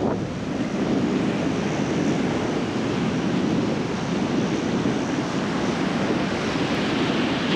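Ocean surf breaking and washing in, a steady rushing noise that swells and eases, with wind on the microphone.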